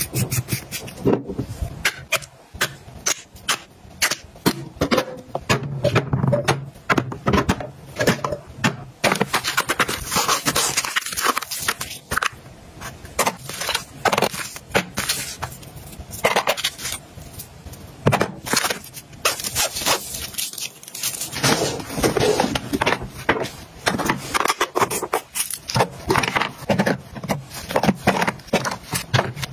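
Plastic makeup containers and compacts being picked up, set down and shuffled about on a cluttered vanity table: an irregular run of clicks, taps and scrapes.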